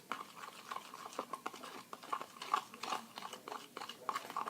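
Thick hand-soap and salt slime mixture being stirred, making rapid, irregular wet clicks and smacks.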